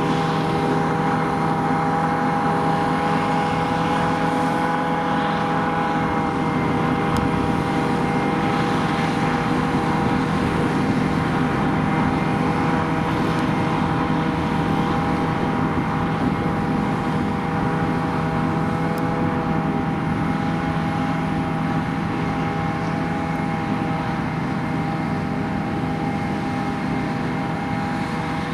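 Diesel engine of heavy farm machinery running steadily at high revs, with several steady whining tones over the engine noise.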